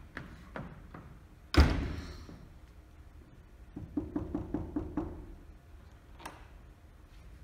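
A stage-set door slammed shut: one loud bang about a second and a half in, echoing in the hall. About two seconds later comes a quick run of about six hollow knocks.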